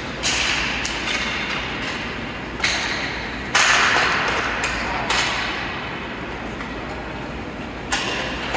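Hockey game play: about seven sharp cracks and knocks of sticks and puck against each other and the boards, each ringing out briefly in the large rink, with a scraping hiss between them.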